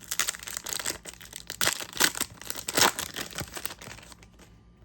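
Trading-card pack wrapper being torn open and crinkled in the hands: a run of rustling tears and crinkles, loudest in a few sharp rips, dying away near the end.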